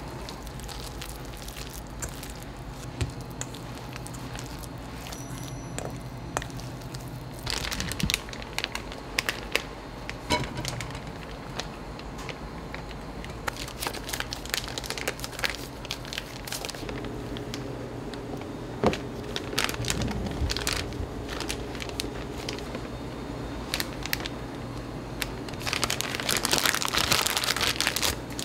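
Bakery kitchen handling sounds: plastic crinkling and rustling with scattered sharp clicks and knocks, ending in a denser burst of rustling. A steady low hum runs underneath.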